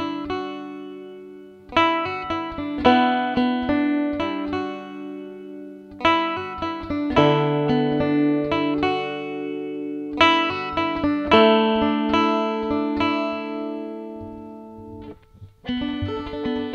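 Deering five-string resonator banjo finger-picked at a slow tempo, playing the chorus vocal melody as clusters of plucked notes over ringing tones. A brief lull comes near the end, then the picking turns denser and more even as the verse begins.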